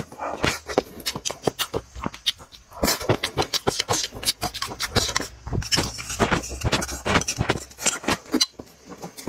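Close-miked eating sounds: a dense run of wet smacking and chewing clicks as mouthfuls of rice and greens are shovelled in with chopsticks and chewed, with short softer pauses between mouthfuls.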